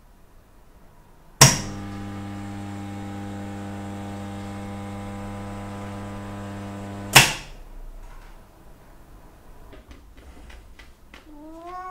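Electric ceramic kiln switching on with a sharp click and running with a steady electrical hum for about six seconds, then cutting off with another click. Near the end a cat starts to meow.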